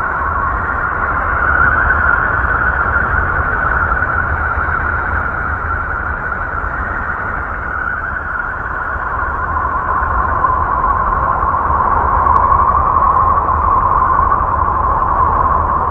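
Space-sound drone presented as a spacecraft recording of the planet Mercury: a steady, noisy hum with a low rumble and a hissing band in the middle, slowly swelling and easing.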